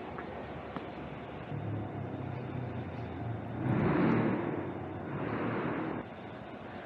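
A motor vehicle passing close by on a city street. Its engine hum comes in about a second and a half in and grows to its loudest around four seconds in. A second, smaller swell follows, and the sound cuts off suddenly near the end.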